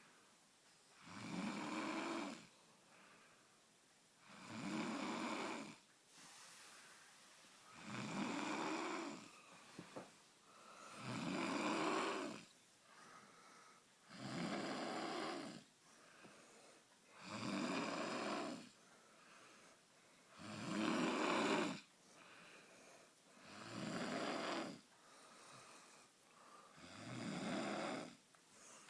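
A child snoring in deep sleep: nine long, loud snores at an even pace, about one every three and a half seconds, with quiet breathing in between.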